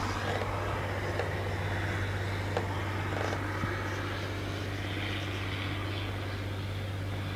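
Wind blowing loose snow across open ground, a steady rush, with a steady low drone underneath.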